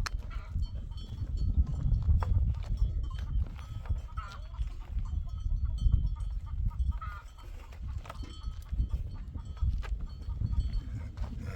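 Small livestock, a few short faint bleats about four and seven seconds in, with the clank of bells, over a heavy uneven low rumble and scattered clicks.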